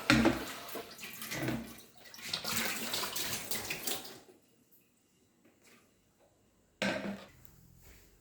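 Refrigerator making a loud, uneven rushing, water-like noise for about four seconds, then it cuts off; the owner suspects the motor and fears the fridge is failing. A short loud noise comes near the end.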